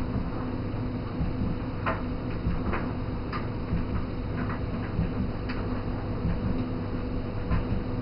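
A laundry machine running: a steady hum with light, irregular clicks over it.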